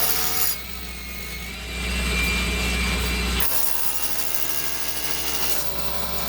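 Large drill boring holes for a foundation repair, running with a steady low hum and several steady tones. It drops back about half a second in, builds up again near two seconds in, and changes pitch around three and a half seconds in.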